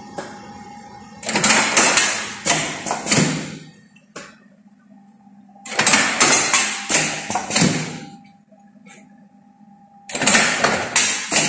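Automatic lead-bullet casting machine running through its cycle: about every four seconds a spell of rattling and clanking with several sharp knocks, lasting about two seconds, with a steady hum in between. The third spell starts near the end.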